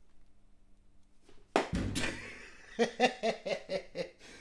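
A single hard thunk about one and a half seconds in, as a kitchen utensil is set down hard on a wooden chopping board, followed by a quick run of short low sounds.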